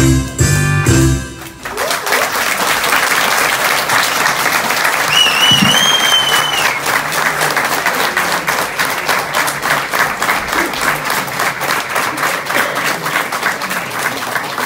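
The last notes of a song stop about a second and a half in, and an audience breaks into steady applause. Someone in the crowd whistles once, a wavering whistle, about five seconds in.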